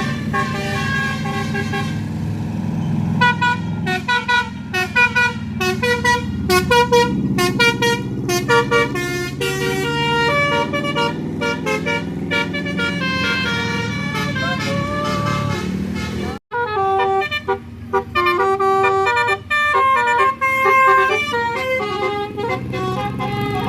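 Tour bus's Basuri telolet horn, a set of air horns tooting a quick tune of short notes at changing pitches, over the bus engine running. The sound cuts out for a moment about two-thirds of the way through, then the tune goes on.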